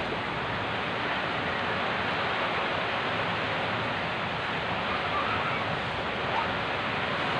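Steady rushing noise of typhoon wind and heavy rain, an even hiss that does not let up.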